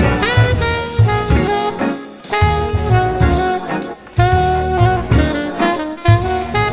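Jazzy background music: a saxophone-like melody over a steady drum beat.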